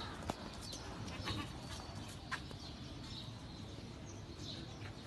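Goats bleating faintly, with a few sharp clicks or knocks about a second apart.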